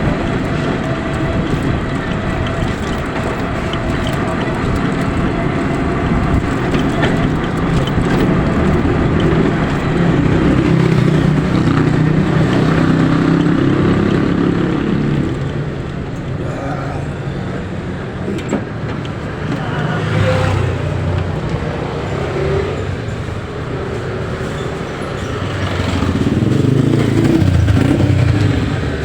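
Motor vehicle engine and road noise on the move, a steady rumble that swells about ten to fourteen seconds in and again near the end.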